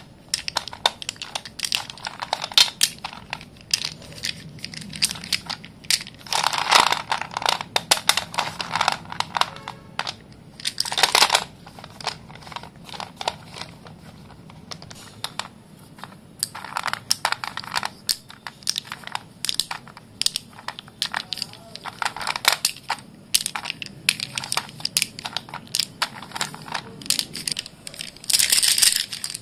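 Sticks of white dustless school chalk being crushed and crumbled: an irregular run of crunches and small snaps, with denser stretches of grinding crunch about a quarter of the way in, just over a third in, and near the end.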